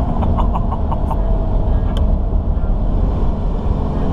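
Cummins turbo-diesel pickup engine running at speed, heard from inside the cab: a loud, steady low drone mixed with road noise.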